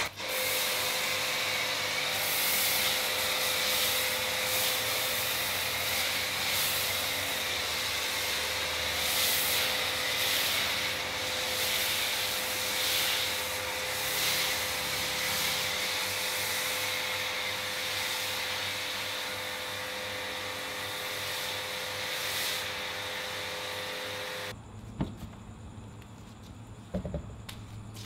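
Pressure washer running and spraying snow foam onto a car: a steady hiss of spray over a constant motor hum. It cuts off suddenly about 24 seconds in, leaving a couple of faint knocks.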